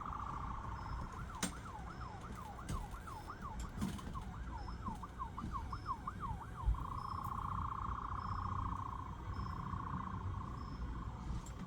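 Emergency vehicle siren in a fast yelp, sweeping up and down about three times a second, that switches to a slow wail about seven seconds in.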